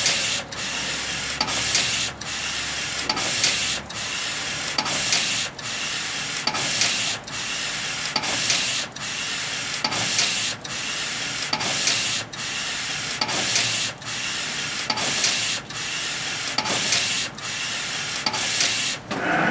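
NC-610A direct-to-garment T-shirt printer at work: the print-head carriage sweeps back and forth along its rail, about one pass a second, with a brief pause at each turn.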